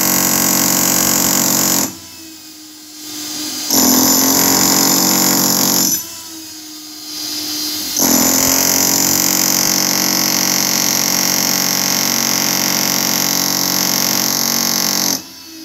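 Electric angle grinder cutting into a concrete block wall, in three bursts of about two, two and seven seconds, with the motor easing off and spinning back up between them.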